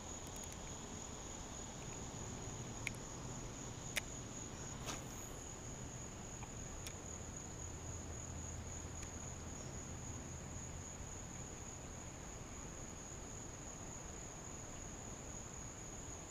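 Steady high-pitched insect trill, cricket-like, running without a break, with a few faint sharp clicks a few seconds in.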